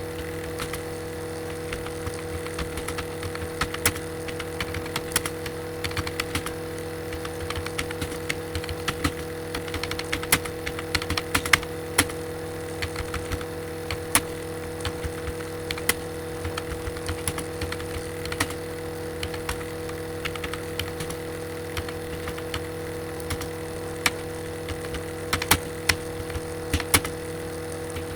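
Typing on a computer keyboard: rapid, irregular key clicks in flurries, busiest about a third of the way in and near the end, over a steady hum.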